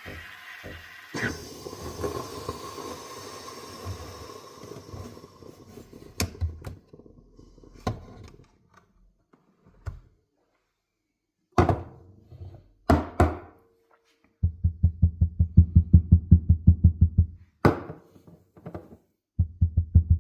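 AIVIQ Aspire Advanced espresso machine: the steam wand hisses for a few seconds, then come a few sharp knocks and clicks. Near the end the machine's pump runs in fast, even throbbing pulses, several a second, in two runs.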